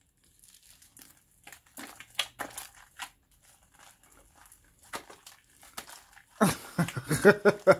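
Sticky pink shaving-cream slime being kneaded and squeezed in bare hands, making irregular wet crackling and squelching, denser and louder in the last second or so. The slime is still sticking to the fingers, with a little more detergent activator just worked in.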